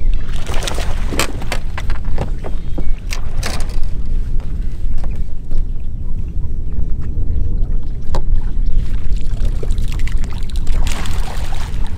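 Fishing boat on open water: a steady low rumble of motor and water, with wind buffeting the microphone and a few short knocks.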